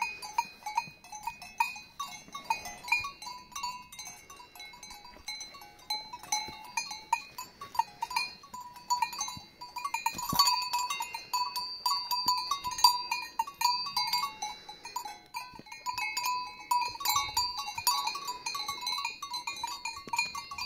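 Bells worn by grazing horses clanking irregularly and overlapping: several bells at different pitches, some strokes ringing on briefly.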